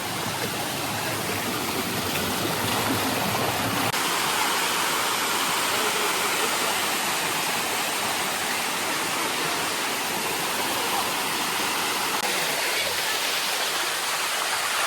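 Water rushing down the Sticky Waterfall's cascades: a steady, even rush with less low rumble from about four seconds in.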